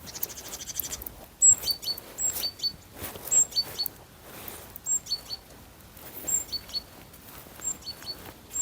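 A small bird singing the same short phrase over and over, about once a second: a high thin note followed by two quick lower notes. A brief rapid trill comes just before the first phrase.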